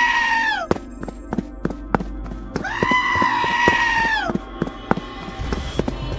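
Two long, high-pitched wailing cries, each about a second and a half, held steady and then dropping in pitch at the end. They play over background music with a regular clicking beat.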